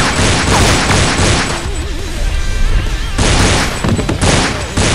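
Dubbed rapid gunfire sound effects over action-score music: a sustained volley for about the first second and a half, then two shorter bursts near the end.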